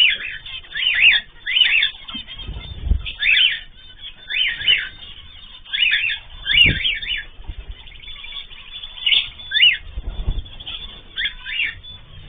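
Pet cage birds chirping, with short, sharp calls repeated every half second to a second. Three low thumps are heard about a quarter, halfway and four-fifths of the way through.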